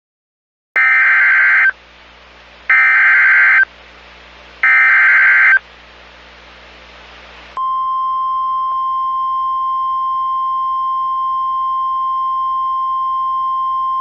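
NOAA Weather Radio alert opening: three short bursts of SAME digital header data, each about a second long with a second's gap between them. About halfway through, a single steady high tone begins: the 1050 Hz warning alarm tone, which signals that a warning-level message, here a severe thunderstorm warning, follows.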